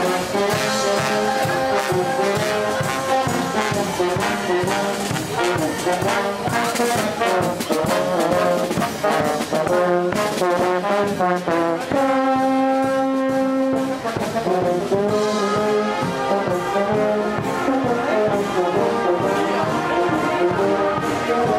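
Marching brass band playing live, with sousaphones, trumpets and other brass over snare drums. About twelve seconds in, the band holds one chord for about two seconds.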